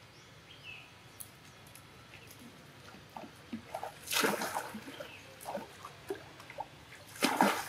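Macaques splashing in a pool of water: two loud splashes, one about four seconds in and another near the end, with small sloshes and drips between.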